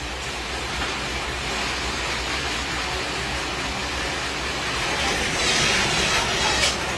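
Satay-skewer production machine running with a steady, noisy mechanical sound that grows a little louder about five seconds in.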